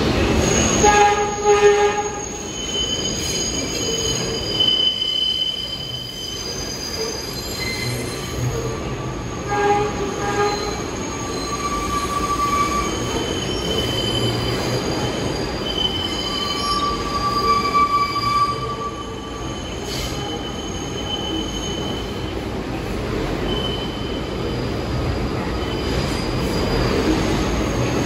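An R62A subway train pulling into the station, with its wheels squealing on the rails in drawn-out high tones that come and go over a steady low rumble. A short pitched tone sounds about a second in and again about ten seconds in.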